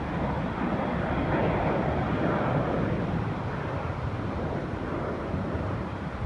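Jet airliner climbing away after takeoff: steady, broad jet engine noise with no clear tone, fading slightly near the end.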